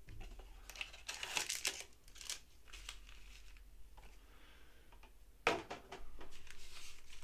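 Foil football trading-card pack wrappers crinkling as they are handled and torn open, with a sharper rip about five and a half seconds in.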